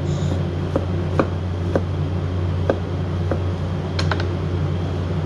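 Kitchen knife knocking on a chopping board while finely dicing shallots: about seven sharp, irregular knocks, two of them close together near the end, over a steady low background hum.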